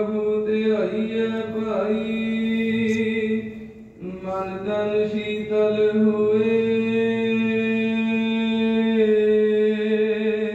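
A voice chanting gurbani in long held notes, in two long phrases with a short break about four seconds in.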